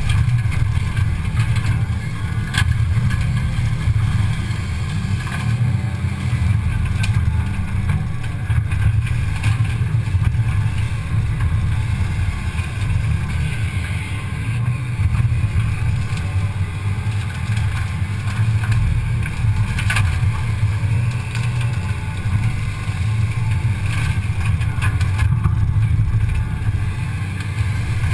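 Cat 320 excavator's diesel engine running steadily under load, a heavy low rumble, heard from a camera strapped to the front of the machine, with a few faint knocks.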